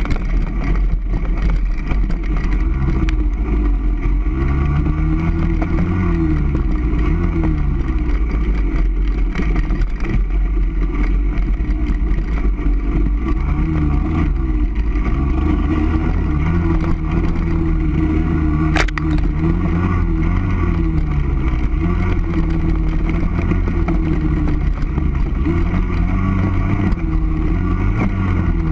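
Off-road motorcycle or quad engine riding along a trail, revving up and down again and again as the throttle opens and closes, over a heavy low rumble. A single sharp click about two-thirds of the way through.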